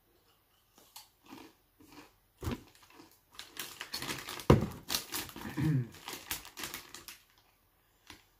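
Foil Doritos bag crinkling and rustling as a hand digs into it, among scattered clicks and handling noises. A sharp knock about four and a half seconds in is the loudest sound.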